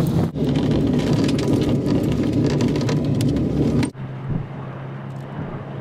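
Onboard the Ecotricity Greenbird wind-powered land yacht at speed: loud wind rush and tyre rumble with a fast rattling from the cockpit. It cuts off abruptly about four seconds in, leaving a quieter steady hum.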